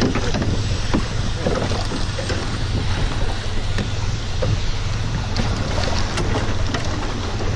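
Fishing boat's engine running with a steady low hum, under wind on the microphone and sea noise, with a few light knocks.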